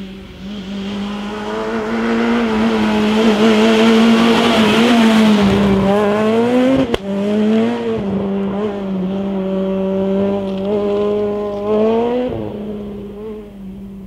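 Peugeot 207 rally car's engine at full throttle, approaching, passing and pulling away. Its revs climb and drop sharply at two upshifts, about seven and about twelve seconds in, with a crack at the first. It fades as the car drives off.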